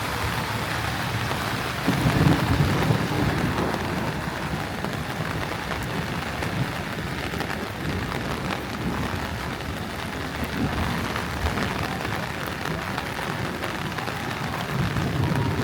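Heavy rain falling and pattering on wet surfaces in a steady hiss, with a low rumble swelling about two seconds in and again near the end.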